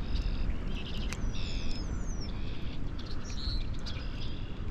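Birds singing: a short trilled phrase repeated about once a second, with a few thin falling whistles early on. Steady wind rumbles on the microphone underneath.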